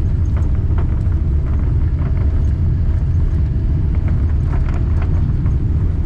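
Airliner heard from inside the cabin, rolling on the ground: a steady low rumble of engines and wheels, with faint irregular knocks scattered through it.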